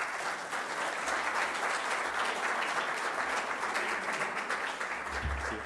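Audience applauding at the end of a talk, starting all at once and tapering off near the end.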